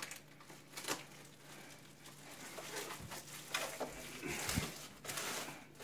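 Plastic wrapping rustling and crinkling on and off as a tower speaker is handled and unwrapped, with a couple of dull knocks from the speaker being moved.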